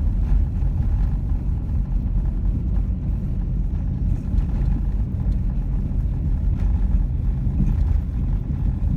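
Steady low rumble of a Jeep Commander driving, heard from inside the cabin: engine and tyre noise.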